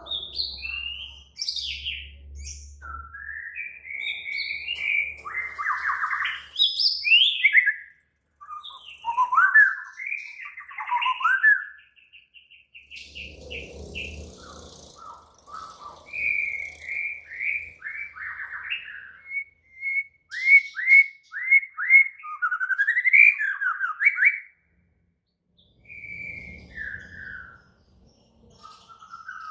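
White-rumped shama (murai batu) singing a long, varied song of loud whistled phrases, slurred notes and rapid trills, broken by a few short pauses. It is the agitated, aggressive song of a fired-up male (ngamuk).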